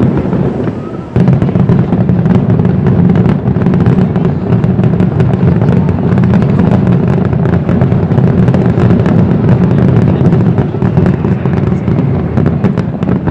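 Fireworks display going off in a dense, continuous barrage of rapid bangs and crackles. It steps up suddenly about a second in and then holds steady.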